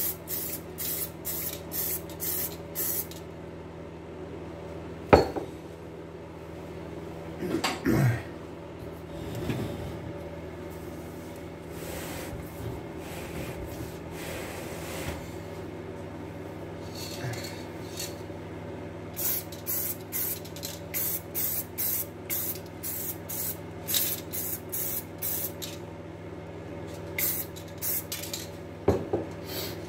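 Black spray paint hissing out in runs of short bursts, about three a second, as a car wheel rim is given another coat. The bursts come at the start and again through the last third, with a couple of sharp knocks in between over a steady low hum.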